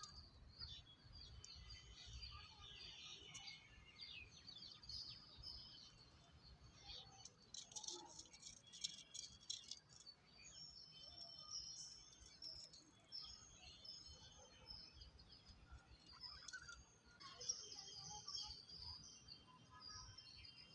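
Lovebirds chirping, many quick high-pitched chirps in clusters, busiest in the first few seconds, around eight to ten seconds in, and again near the end, with a few sharp clicks among them.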